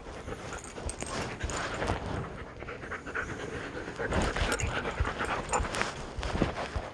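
Two dogs panting and chewing on welding gloves, with a busy run of small clicks and mouth noises throughout.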